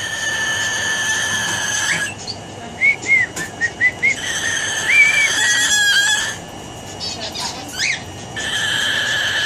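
Umbrella cockatoo making a loud, steady, high whistle-like tone that it holds for about two seconds, then breaks into a run of short rising-and-falling chirps, holds the tone again for about two seconds, pauses with a few clicks, and takes the steady tone up again near the end.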